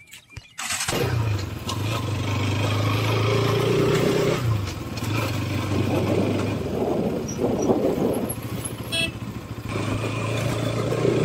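Motorcycle engine running steadily while being ridden, heard from the rider's seat. It starts abruptly about a second in, eases off briefly around four and a half seconds in, then picks up again.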